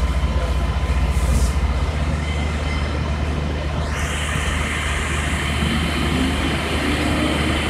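Fire engine's engine running steadily at the scene, a low drone, under a hiss. About four seconds in the hiss rises in pitch and grows louder.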